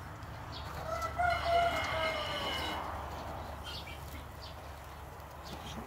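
A rooster crows once, a single call starting about a second in and lasting about two seconds, falling in pitch at the end, over a steady low rumble.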